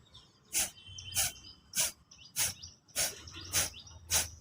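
Kapalbhati pranayama breathing: short, forceful exhalations pushed out through the nose by sharp snaps of the belly, seven of them in a steady rhythm of nearly two a second.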